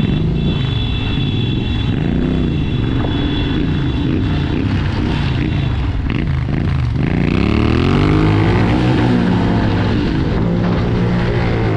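Motorcycle engine running under way, its pitch rising and falling repeatedly with throttle and gear changes, with a longer rise in revs about two-thirds of the way through.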